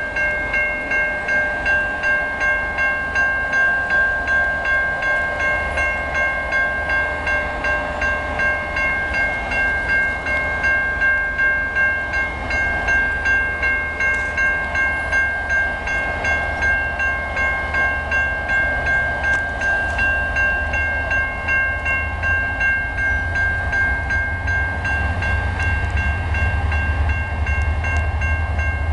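Railroad grade-crossing bell ringing steadily, about two strikes a second, as the crossing warns of an approaching train. In the last few seconds a low rumble from the approaching train rises beneath it.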